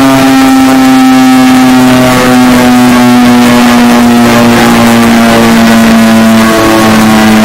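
Emergency-alert alarm tone: a loud, harsh electronic drone held without a break, its pitch slowly sinking.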